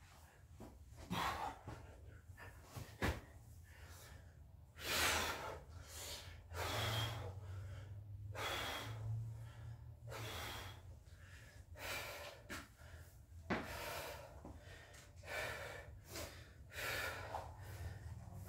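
A man breathing hard, with loud gasping breaths every second or two: winded from the exertion of a long set of burpees.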